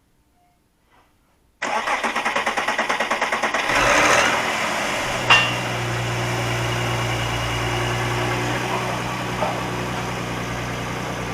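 Volkswagen Touareg engine being started after its crankcase breather (PCV) membrane was replaced: the starter cranks for about two seconds with a quick even pulsing, the engine catches and flares up, then settles into a steady idle. A single sharp click sounds shortly after it catches.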